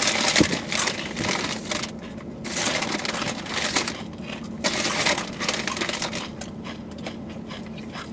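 Crunching of Takis Fuego rolled corn tortilla chips being chewed, irregular crunches with short gaps, a little louder in the first half.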